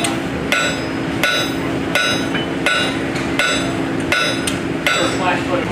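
Sharp, ringing metal-on-metal strikes repeating evenly about every three-quarters of a second, seven in all, over a steady low mechanical hum.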